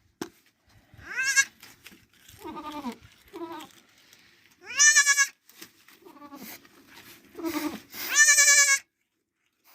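Goat kids bleating: three loud, high, wavering bleats about a second, five seconds and eight seconds in, with fainter, lower bleats between them.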